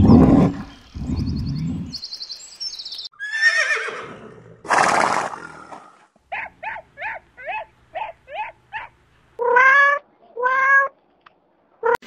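A bear growling low and loud for the first two seconds, then a horse whinnying and neighing: several separate calls, a quick string of short pulsed calls midway, and two longer neighs near the end.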